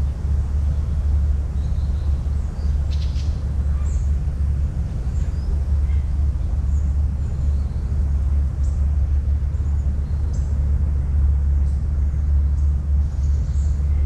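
Outdoor ambience dominated by a steady low rumble, with small birds chirping faintly and intermittently.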